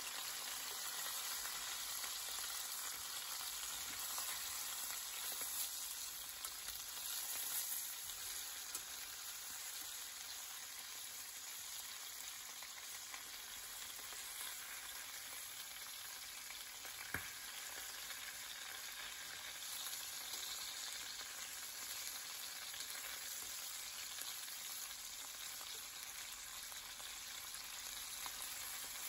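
Floured chicken pieces and garlic frying in olive oil in an enamel pan: a steady sizzle as they are turned with tongs, with one sharp click about halfway through.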